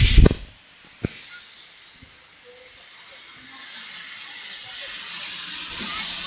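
Steady high-pitched hiss that starts abruptly with a click about a second in, after a brief near-silent gap, with a few faint short chirps over it.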